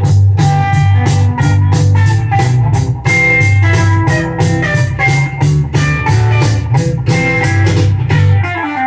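A blues-rock record playing on a Lenco L90 belt-drive turntable with a Shure M70B cartridge, in an instrumental stretch: plucked guitar over a heavy bass line and a steady beat.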